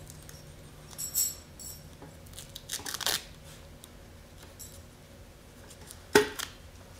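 Hands handling small parts on a workbench: short rustles about one and three seconds in, then a sharp tap or click near six seconds, the loudest sound, over a faint steady hum.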